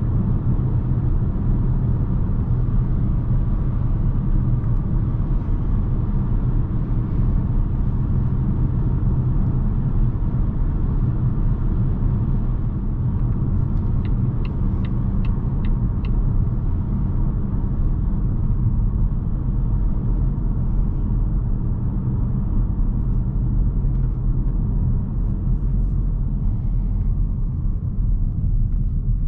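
Steady in-cabin road and tyre rumble of a 2020 Volvo V60 T5 Cross Country cruising at road speed, with its 2.0-litre turbocharged four-cylinder engine underneath. A short run of about six quick ticks comes about halfway through, and the upper hiss thins slightly near the end.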